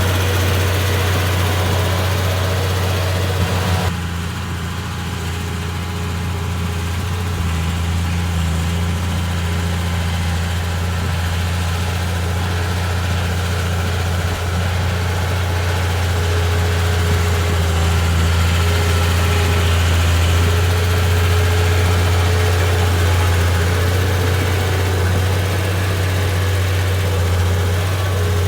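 Komatsu D31P bulldozer's diesel engine running steadily with a deep, even hum. About four seconds in it turns suddenly quieter and duller, then slowly builds back up.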